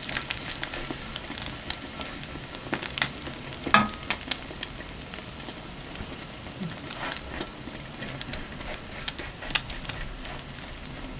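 French toast frying in butter on a griddle pan, sizzling steadily, with repeated sharp clicks and scrapes of metal spatulas against the pan.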